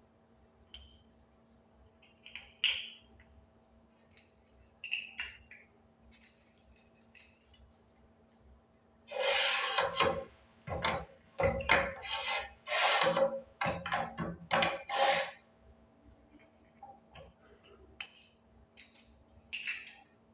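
Pin badge and hook press being worked by hand: scattered metal clicks and knocks, with a run of louder clattering strokes in the middle, over a faint steady hum.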